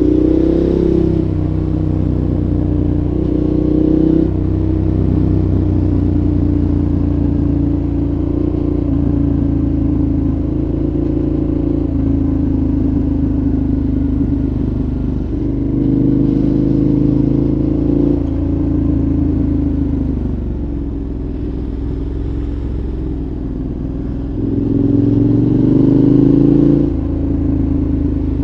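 2014 KTM 1190 Adventure's V-twin engine through a Giannelli exhaust with the dB killer fitted, running under way at steady revs with short throttle pulls where the pitch rises and the sound swells: one near the start, one at about 16 seconds and one at about 25 seconds.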